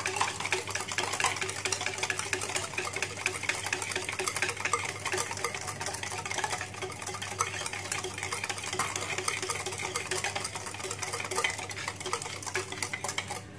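Wire balloon whisk beating a runny instant-coffee, sugar and hot-water mixture in a plastic bowl: fast, continuous clicking and scraping of the wires against the bowl as the mixture is whipped toward a foam for dalgona coffee.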